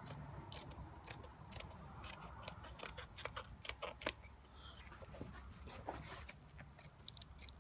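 Scissors snipping through suede fabric in a series of irregular cuts, the sharpest snip about halfway through.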